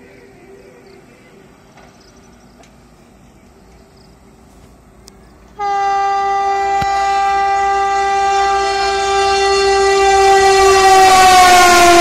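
Indian Railways electric locomotive's horn sounding one long continuous blast that starts suddenly about five and a half seconds in and grows louder as the train approaches. Near the end the pitch drops slightly as the locomotive passes close by.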